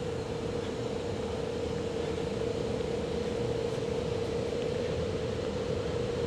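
A steady mechanical hum with one constant mid-pitched tone held throughout.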